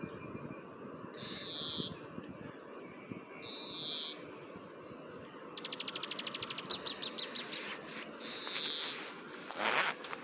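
Bird calling repeatedly: a short, harsh, high call sliding downward, given every two to three seconds, with a fast trill in the middle that slows toward its end. A brief rustling burst comes near the end.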